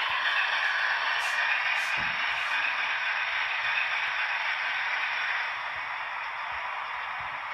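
OO gauge model train running on the layout: a steady whirring hiss that drops a little in level about five and a half seconds in.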